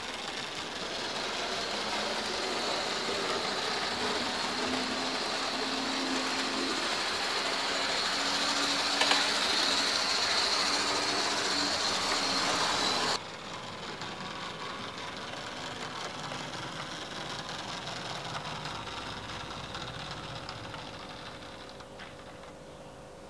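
Lima model railway locomotive running on the track: the steady whirr of its small electric motor and its wheels on the rails. About thirteen seconds in the sound cuts off suddenly to a quieter whirr with a steady hum, which fades toward the end.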